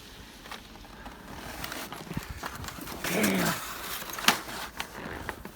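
Plastic clicks and knocks as the unplugged Dyson DC25 upright vacuum is handled and stood up, with a sharp knock a little past four seconds in.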